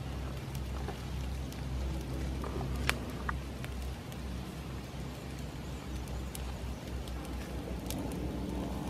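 Charcoal fire under a whole pig roasting on a spit: a steady hiss with a few scattered sharp crackles and pops, over a low rumble.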